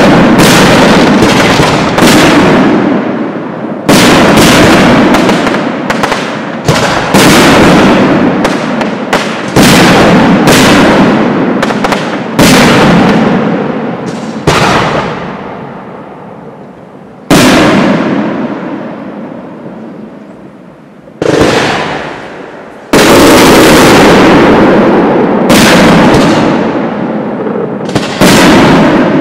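Aerial firework shells bursting one after another, loud sharp bangs each trailing off in a long rolling echo. The bangs come thick and fast, thin out for a few seconds past the middle, then pick up again.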